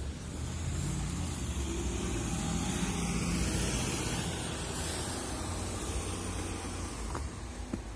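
A motor vehicle passing on a snow-covered street: a low engine and road noise that swells over the first few seconds and then slowly fades, with a couple of short taps near the end.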